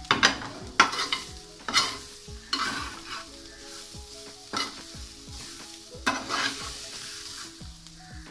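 Metal spoon stirring and scraping a chicken-and-onion filling around a metal pan over a low gas flame, the food sizzling gently. Irregular scrapes and clinks of the spoon against the pan come about once a second.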